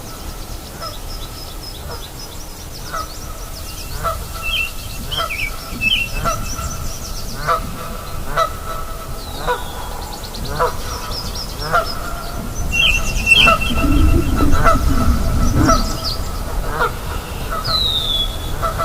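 Nyamang giving short repeated calls, about one a second, answered by birds chirping and whistling higher up, over a steady low rush of river water that swells for a couple of seconds near the end.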